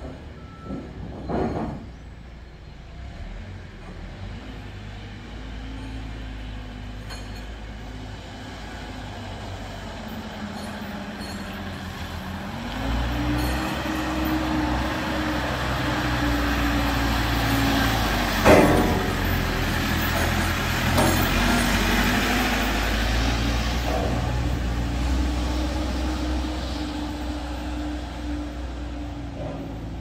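Diesel backhoe loader driving past carrying a steel plate hung by chains from its front bucket. Its engine grows louder about halfway through, stays strong for a while, then fades, with a sharp clank a little past the middle.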